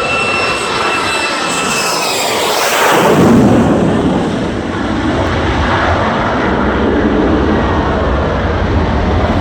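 F-35 fighter jet flying past: a high engine whine falls in pitch as it passes, loudest about three seconds in, then gives way to a steady low jet roar.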